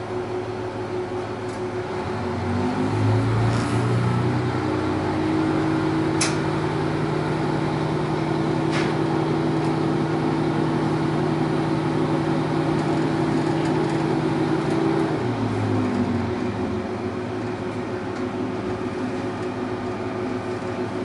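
A Sanriku Railway diesel railcar's engine, heard from inside the car. It hums low at first. About two and a half seconds in it opens up, rising in pitch to a steady, louder drone as the train pulls away. It holds for about twelve seconds, then the throttle is shut and it falls back to a low hum. A few sharp clicks come during the run.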